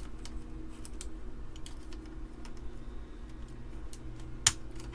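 Amiga keyboard keys and keycaps clicking and rattling as they are worked at and pried up, with one sharper click about four and a half seconds in, over a faint steady low hum.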